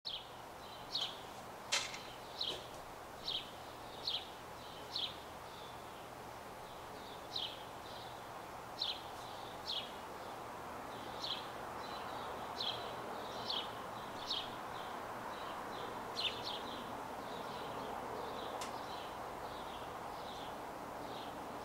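A bird giving short, high, down-slurred chirps about once a second, at an uneven pace, over a steady outdoor hiss that grows slightly louder. A single sharp click about two seconds in.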